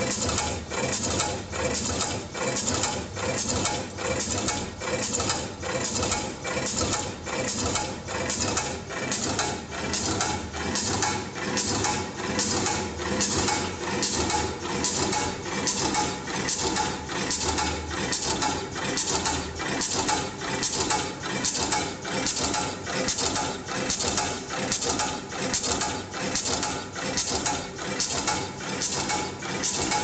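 Automatic wire twisting and crimping machine running through its cycle: a steady, even rhythm of mechanical strokes and clinks, about three every two seconds.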